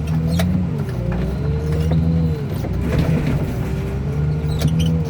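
Heavy machine's diesel engine running steadily under a hydraulic whine that rises and falls with the load, with scattered metal clanks and knocks.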